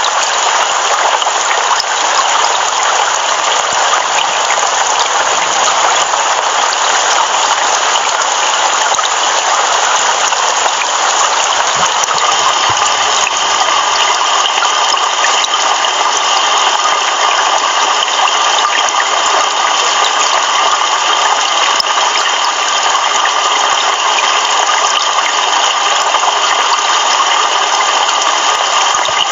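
Heavy rain pouring down, a steady dense hiss with no thunder; its tone shifts slightly about twelve seconds in.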